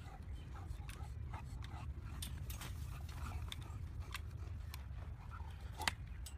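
Light clicks and taps of a bulldog's claws and paws on the metal rungs of a trampoline ladder as it climbs, with one sharper knock near the end, over a low steady rumble.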